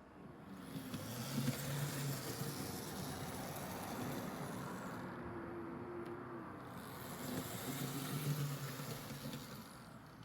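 Kato N gauge Eurostar (Class 373) model train running on track under DCC control: a small electric motor hums and the wheels rumble on the rails. The sound swells twice, about a second and a half in and again about eight seconds in, as the model comes closer.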